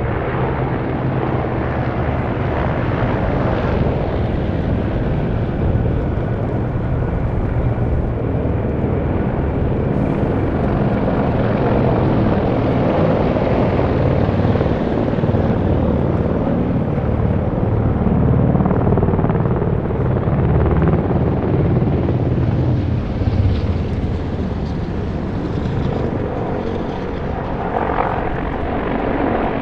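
Military helicopters flying over, a continuous low rotor and engine drone that builds to its loudest a little past the middle.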